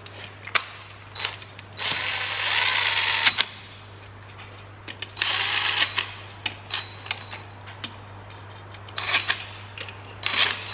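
Cordless impact wrench running bolts down in two bursts, the first about two seconds in and lasting about a second and a half, the second shorter, about five seconds in. Between and after the bursts come sharp metallic clicks and knocks of tools and sockets.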